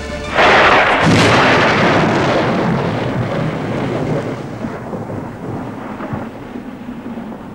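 A thunderclap crashes in suddenly about half a second in and surges again a moment later, then rumbles on and dies away slowly over several seconds.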